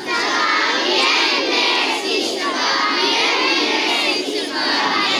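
Crowd of children's voices shouting and calling out together, many at once.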